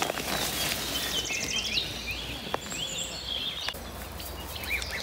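Small birds singing: repeated short chirps and quick trills over a steady outdoor background noise, with two faint clicks near the middle.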